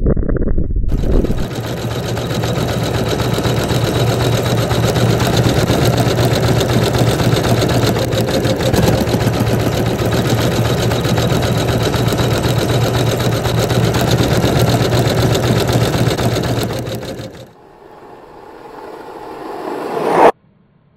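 Sewing machine running fast and steadily, its needle stitching in a rapid even rattle over a low hum; it stops about three-quarters of the way through. A quieter sound then swells and cuts off sharply just before the end.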